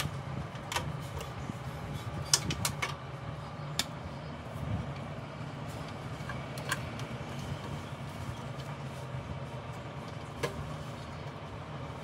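A few sharp clicks and taps from cables and connectors being handled inside a steel desktop PC case, over a steady low hum. The loudest clicks come in a quick cluster about two and a half seconds in.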